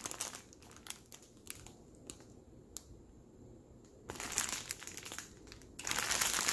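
Clear plastic bags packed with small packets of diamond-painting drills crinkling as they are handled and turned over. The crinkling comes in short bursts, loudest near the end, with scattered light ticks in a quieter stretch in the middle.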